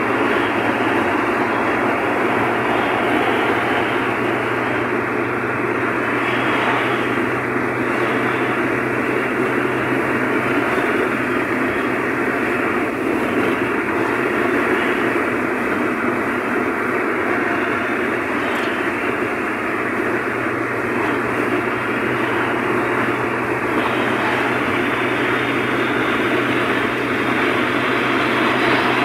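Steady road and tyre noise heard inside a car cruising at motorway speed, with a low steady drone underneath.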